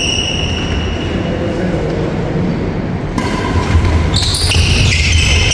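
A doubles badminton rally on an indoor wooden court: shoes squeaking on the floor and the shuttlecock being struck, with high-pitched squeaks that shift in pitch in the second half.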